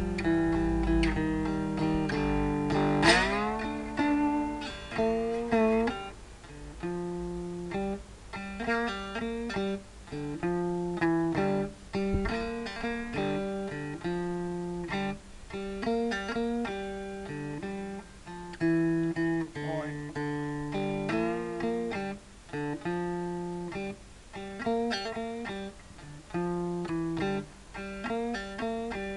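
Electric cigar box guitar played through a small amplifier: picked notes and short phrases with gaps between them, with a fast upward slide about three seconds in.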